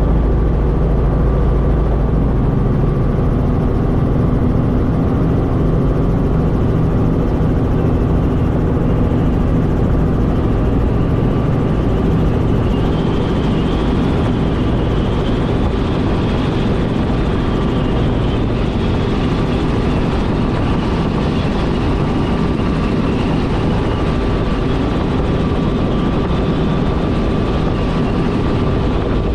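Robinson R44 Raven I helicopter heard from inside the cockpit: its main rotor and Lycoming six-cylinder piston engine running as a steady loud drone, with a thin steady whine riding on top. The deep rumble is heaviest for the first couple of seconds, then eases, and a faint wavering high tone comes in about halfway through.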